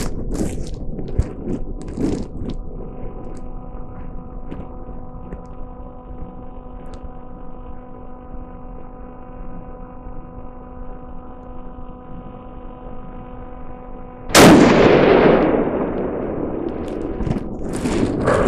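A single rifle shot from a Magnum Research Mountain Eagle in 28 Nosler, about fourteen seconds in: a sharp, loud report with a tail that fades over about two seconds. Before it come a few faint clicks over a steady hum.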